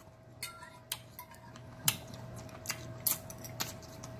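A fork tapping and scraping on a plate: irregular light clicks, about ten over a few seconds.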